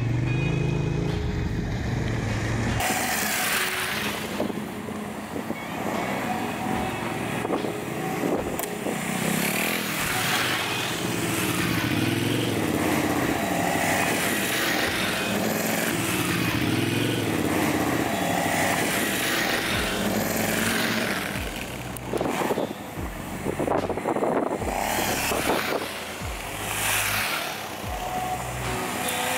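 KTM adventure motorcycles riding through a shallow stream crossing one after another. The engines rev up and fall back as each bike passes, with water splashing around the wheels.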